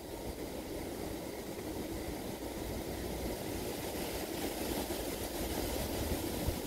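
Steady low outdoor rumble, with a soft hiss about four seconds in as air is drawn through an e-cigarette.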